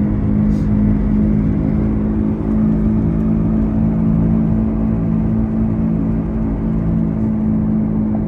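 Steady road and engine noise heard inside a moving car, a low rumble with a constant hum.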